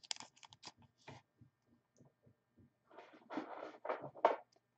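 A trading card being handled and slid into a plastic card sleeve: light clicks and taps, then about a second and a half of plastic rustling near the end.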